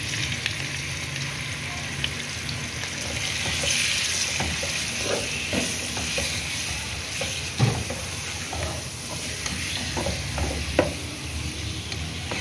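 Raw chicken pieces sizzling in hot oil with chopped garlic, stirred with a slotted spatula that scrapes and knocks against the pot. The sizzle is strongest a few seconds in, and there are a couple of sharper knocks in the second half.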